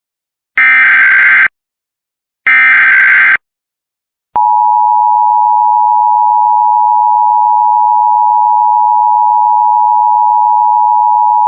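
Emergency Alert System broadcast: two bursts of the SAME digital header, about a second each, a harsh warbling data screech, a second apart. After a second's pause the EAS two-tone attention signal (853 and 960 Hz together) starts at about four seconds in and holds loud and steady. Together they announce an incoming emergency alert, here a child abduction emergency.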